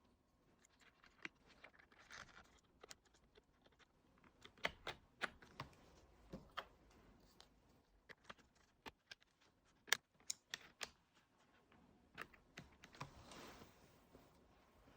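Quiet, irregular light clicks and taps of hands working on a 2010 white polycarbonate MacBook (A1342) during a RAM upgrade, with a soft brushing sound near the end.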